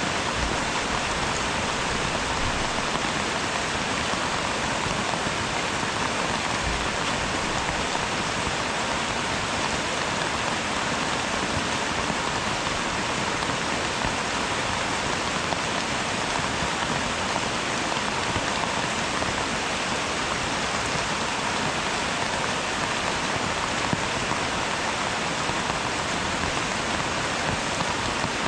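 Steady rain falling, an even, continuous hiss with no thunder.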